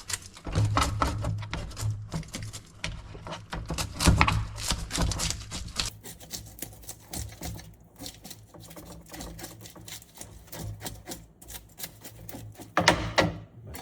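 A large reef fish being scaled by hand: a blade scraping against the scales in rapid strokes, coming in quick runs with short pauses between them.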